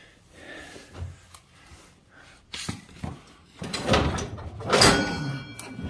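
A 48-inch steel mower deck being shoved and dragged under a riding mower across a concrete floor: scattered knocks, then louder scraping and banging from about three and a half seconds in, with a brief metallic ring near five seconds.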